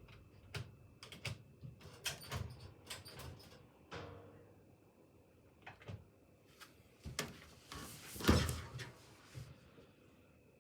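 A series of sharp clicks and knocks from a Hoover Ecologic washing machine being handled and set to program 15, its spin-only programme, with the loudest knock about eight seconds in.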